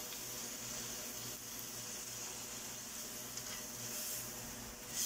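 Watery tomato-and-spice masala sizzling steadily in a nonstick kadai on the stove, just thinned with water, as a wooden spatula stirs it.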